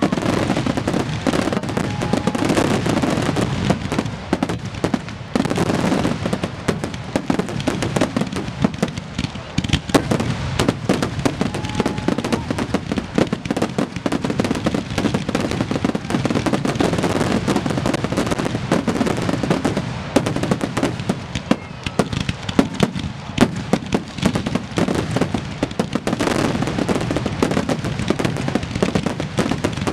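Fireworks finale barrage: aerial shells bursting and crackling in rapid, unbroken succession, dense overlapping bangs with no pause.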